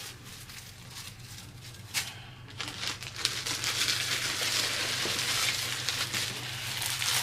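Plastic packaging around rubber microblading practice skins crinkling and rustling as it is handled. There is a sharp tick about two seconds in, and the rustling grows busier and louder from about three seconds in.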